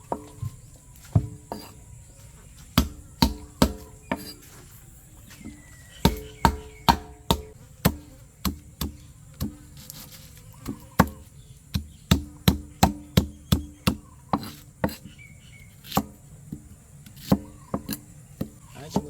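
A knife or cleaver chopping on a wooden cutting board: dozens of sharp strokes in irregular runs, each with a short woody ring.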